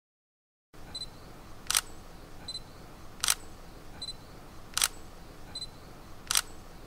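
Camera shutter clicking four times, about a second and a half apart. Each click comes shortly after a short high beep, like an autofocus-confirmation beep.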